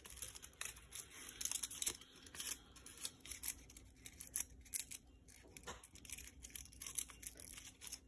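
Faint, irregular rustling and crinkling of construction paper as a fringed paper wing is handled and ruffled between the fingers.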